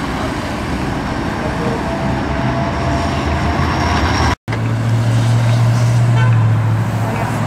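Street traffic noise, then a sports car's engine running with a deep, steady note. The sound cuts out for an instant about four seconds in.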